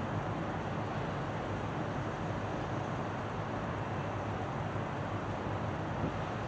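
Steady low rumble with an even hiss, unchanging throughout, from a large container ship's engine.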